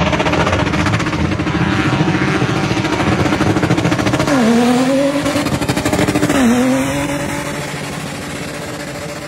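SUV engine revving hard at high rpm while its tyres spin and squeal in a drifting burnout. The engine pitch drops sharply and climbs back up twice, about four and six seconds in.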